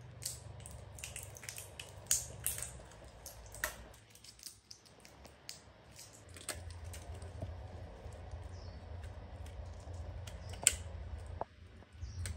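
Crinkling and crackling of a small plastic medicine packet being handled, a quick run of sharp crackles in the first few seconds and a single louder click near the end, over a low steady hum.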